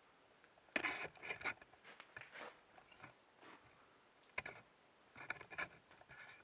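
Shoes and hands scraping and scuffing on rock in short, irregular bursts while climbing down a crack, with a few sharp clicks. The loudest cluster comes about a second in, and there is another a little after four seconds.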